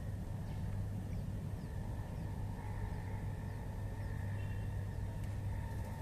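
Steady outdoor background rumble with a faint continuous hum and a few faint, short high chirps from distant small birds.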